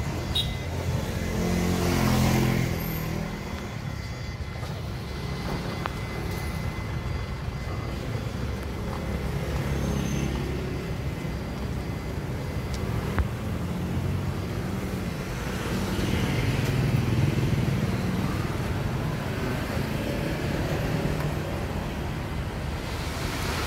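Street traffic: the engines of cars and motor scooters passing close by over a dump truck's engine running. It swells about two seconds in and again around sixteen to eighteen seconds in as vehicles go past, with one sharp tick near thirteen seconds.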